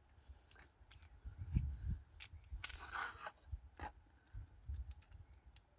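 Faint handling noise of fingers working the plastic clip and hose on a fuel pump hanger assembly: scattered small clicks, a brief scrape just before halfway through, and low thumps.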